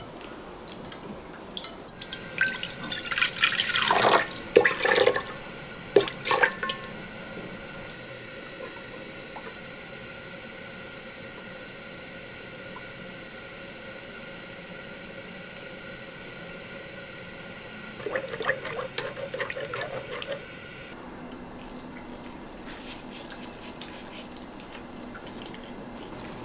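Liquid pouring and splashing in a pan in two spells, the first longer and louder, over a steady hum with a high whine.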